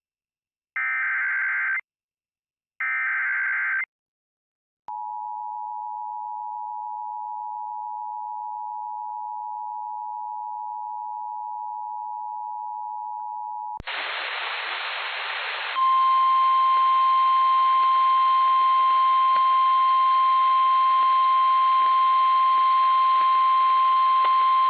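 Emergency Alert System tones: two short screechy SAME header data bursts a second apart, then the steady two-tone EAS attention signal for about nine seconds. After it comes a burst of radio hiss, then a single steady high tone over the hiss, the NOAA Weather Radio warning alarm tone that comes before the spoken flash flood warning.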